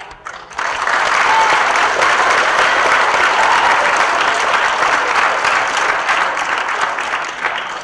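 Assembly audience clapping in applause. It breaks out about half a second in, holds steady and loud, and thins out near the end.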